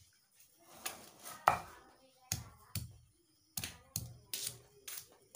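Stone pestle pounding peeled garlic cloves in a stone mortar: about nine dull knocks, roughly two a second, starting about a second in, crushing the cloves coarsely rather than grinding them to a paste.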